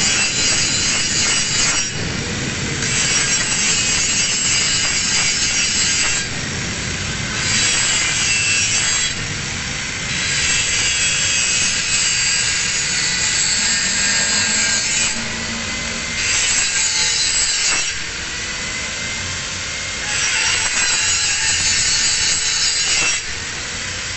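Angle grinder grinding a single bevel on the edge of a steel plate, a loud hissing grind that eases off for a second or so every few seconds as the disc is lifted or repositioned and then bites again.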